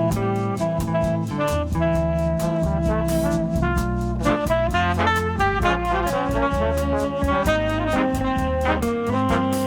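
Instrumental easy-listening background music in a 1970s Muzak style, with brass carrying the melody over a bass line and a steady beat.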